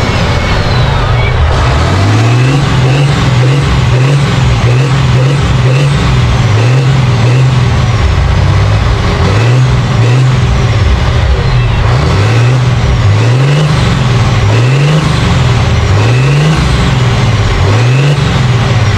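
Turbocharged six-cylinder diesel of a heavily modified John Deere 4020 pulling tractor, straight-piped, being revved in quick repeated throttle blips, roughly one a second. A high turbo whistle falls away after many of the blips.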